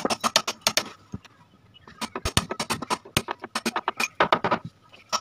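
Hammer striking a flat chisel held against a wooden sofa frame: quick metal-on-metal taps, about four or five a second, with a short pause about a second in.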